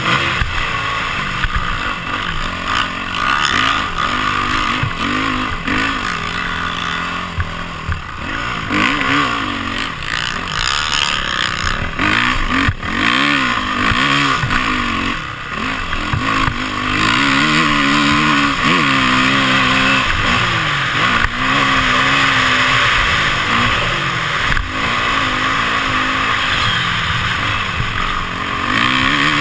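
Dirt bike engine revving up and easing off over and over as the bike is ridden hard around a sand track, heard from a camera mounted on the bike, with a steady rush of wind noise over it.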